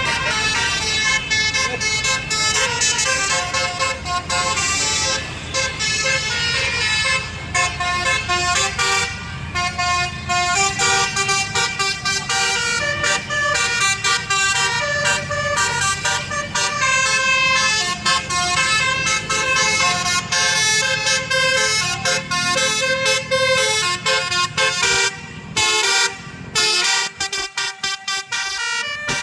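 Tour bus's telolet basuri, a multi-trumpet musical air horn, playing a quick tune of changing notes over the bus's low engine rumble. The rumble drops away near the end.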